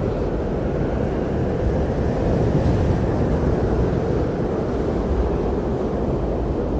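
Blizzard wind blowing steadily as a low, rumbling rush, swelling slightly a couple of seconds in.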